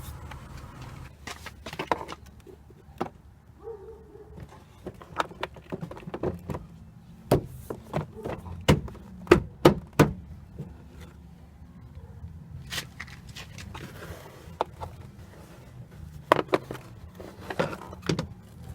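Scattered sharp plastic clicks and knocks as a car's interior door trim pieces and screw caps are pressed and snapped back into place, densest about eight to ten seconds in and again near the end, over a low steady hum.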